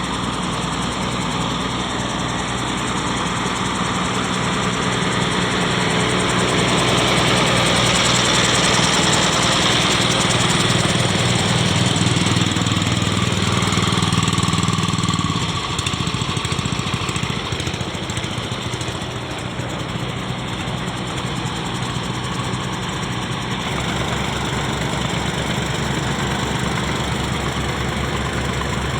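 Diesel engine of a drainage water pump running steadily, its low note shifting about halfway through.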